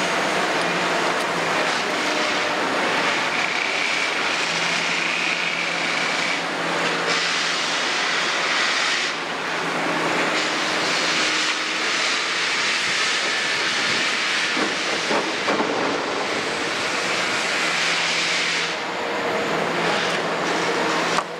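Kobelco 350 NLC hydraulic excavator working through a dig-and-load cycle: diesel engine running steadily under load, with a high hydraulic whine that comes and goes as the boom lifts and the machine swings.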